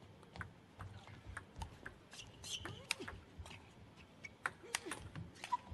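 Celluloid/plastic table tennis ball clicking off bats and table during rallies, quick irregular clicks, faint in a large hall.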